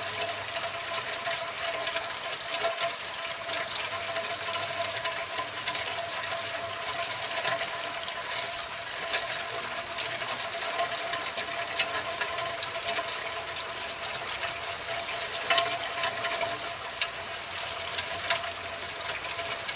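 Rain pattering on a car windshield: a steady hiss of water with many small, irregular taps of drops, over a faint steady hum.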